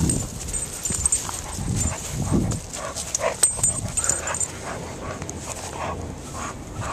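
Golden retriever making short dog noises at close range while she noses a soccer ball on grass, among scattered knocks and scuffs.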